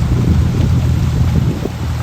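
A heavy machine's engine running with a steady low rumble.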